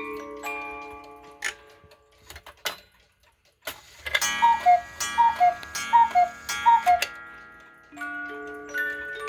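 Cuckoo clocks going off together. A music-box tune fades out and a few mechanism clicks follow. A cuckoo then calls four times from its bellows pipes, each call a falling two-note "cu-ckoo" with a click. About 8 seconds in, another clock's music box starts a tune.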